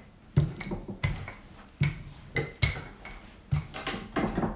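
Wooden rolling pin working pie dough on a marble pastry board: a run of knocks and thuds, roughly one every half second to second.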